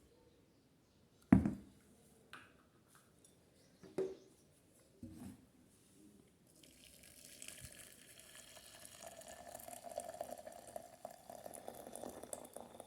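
A few knocks of kitchen utensils or containers. About halfway through, water starts running steadily into a vessel and keeps flowing to the end.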